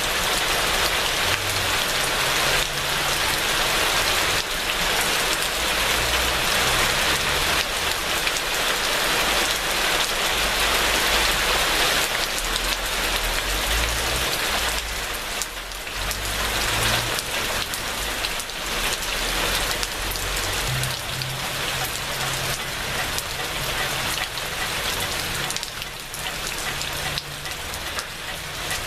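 Rain falling steadily, a dense, even hiss of drops on surfaces that runs without a break.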